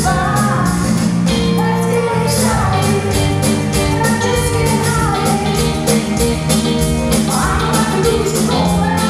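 Live rock band playing a song: drums keep a steady beat under electric guitar, bass guitar and keyboard, with vocals sung over the top.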